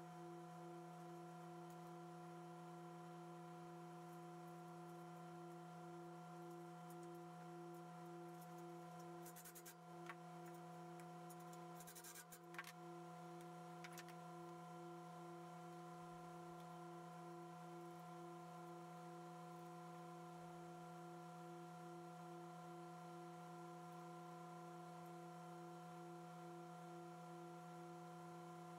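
Near silence: room tone with a faint steady hum, broken by a few faint clicks about ten and twelve seconds in.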